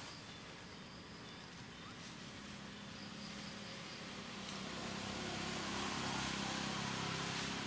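A motor vehicle passing nearby: a low engine hum with road noise that grows louder over the second half, over outdoor ambience with faint, high, repeated insect chirps in the first half.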